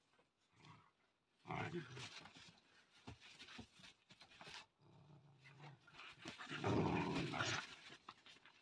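Puppies playing tug-of-war over a rope toy, giving low play growls, with two louder spells about a second and a half in and near the end.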